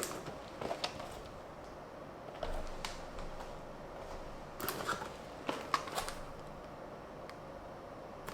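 Tomica die-cast toy vehicles being handled: scattered light clicks and taps, in a few small clusters.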